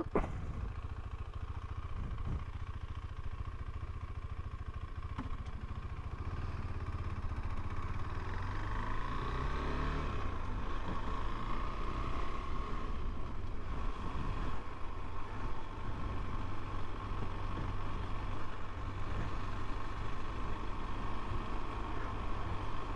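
Motorcycle engine running on the move. The engine note rises about a third of the way in as it picks up speed, then holds steady.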